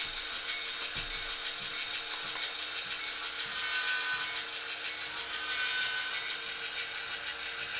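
HO-scale model diesel locomotive running light along the track: its motor and gear drive whir with a fine mechanical rattle. A high whine rises slowly in pitch over the last few seconds as it picks up speed.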